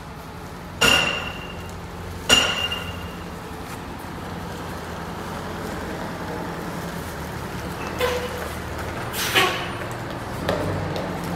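MCI 9 coach's diesel engine running steadily as the bus pulls slowly toward the shop. Two sharp ringing metallic clanks about a second and a half apart come about a second in, and two softer knocks near the end.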